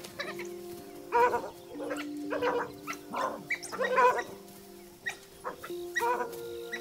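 African wild dogs calling: about five short, wavering yelps spread across a few seconds, over sustained background music notes.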